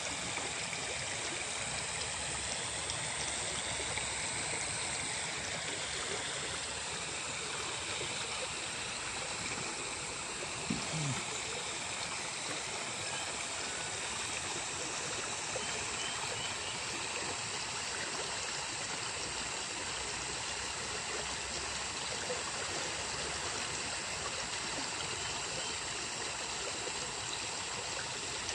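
Steady rush and splash of water spilling from a small channel over a bank into a pond. A brief low sound stands out once, about ten seconds in.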